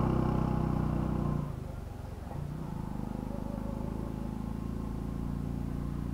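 Motorcycle engine running, fading over the first second and a half and then holding a quieter, steady hum.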